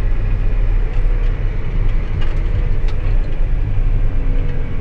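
Farm tractor driving along, its engine running with a steady low drone and a few light ticks and rattles.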